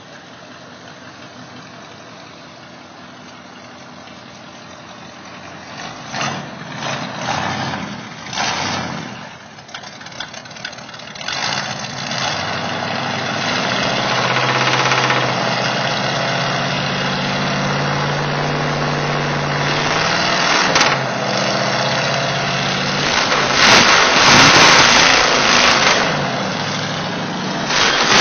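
Old pickup truck's engine cranking in uneven bursts and catching about six seconds in, then running loud and steady from about eleven seconds, revved higher near the end.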